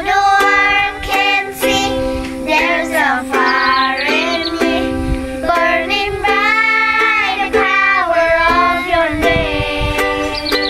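Children's song: a child's voice singing over strummed ukulele accompaniment.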